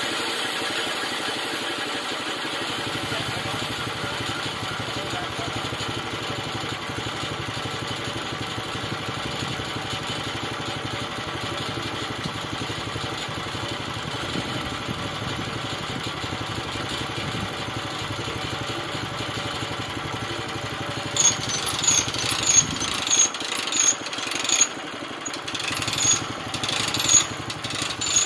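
Small engine of a homemade bandsaw sawmill running steadily. Near the end comes a run of sharp knocks and clatter.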